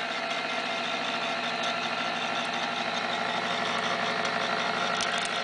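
Countertop electric can opener running with a steady motor hum as it turns a can of tomatoes. The hum stops suddenly at the end.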